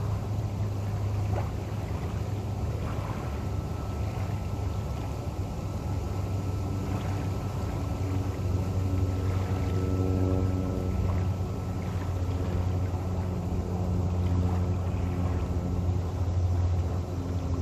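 Low, steady engine rumble of a boat on the river, with a pitched hum that strengthens and wavers in the second half.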